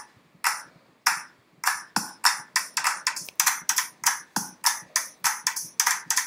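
Opening of the background music: a rhythm of short, sharp percussive hits with no melody or bass, a few sparse ones at first, then about three to four a second.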